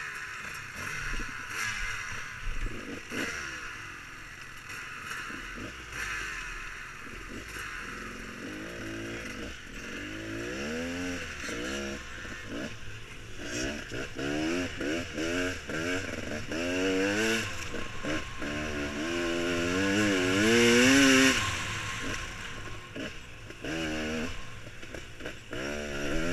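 Beta Xtrainer two-stroke dirt bike engine under way on a trail, revving up and down over and over with the throttle. It is subdued for the first several seconds, then rises and falls repeatedly, loudest a little past two-thirds of the way through. Scattered knocks and clatter come from the bike over the rough ground.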